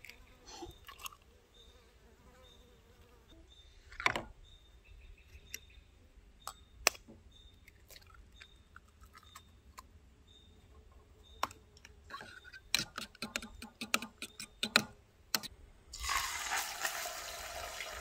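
An egg cracked on the rim of a ceramic bowl and a few separate clicks of a fork against it, then a quick run of fork clicks as the eggs are beaten. About two seconds before the end a loud sizzle starts as the beaten eggs go into a hot frying pan.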